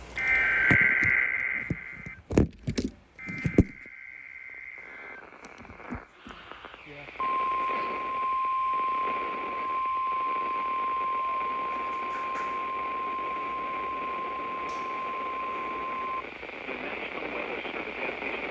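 Emergency Alert System broadcast over weather radio starting a new alert: two bursts of the warbling SAME header data tones with a few sharp clicks between them, then the steady single-pitch 1050 Hz NOAA Weather Radio warning alarm tone for about nine seconds, which cuts off sharply. Radio hiss runs underneath.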